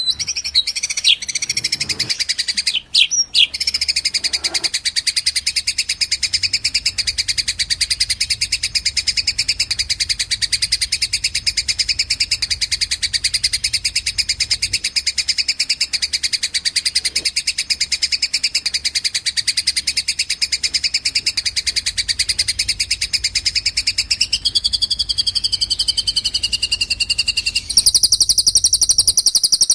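Songbird tutor recording of Eurasian tree sparrow fighting chatter mixed with cililin song: a fast, unbroken run of high chirps. Near the end it switches to a different, louder chirping pattern.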